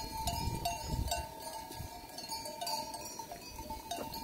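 Many bells on a flock of sheep clinking irregularly, with a steady ringing note underneath; a low rumble dies away about a second in.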